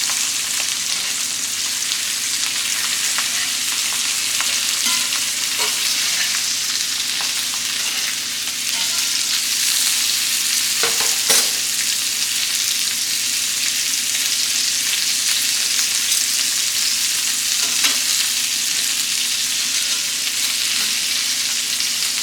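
Steak searing in a very hot skillet with butter, rosemary, thyme and garlic: a steady frying sizzle, with a few light clicks and one sharper knock about eleven seconds in.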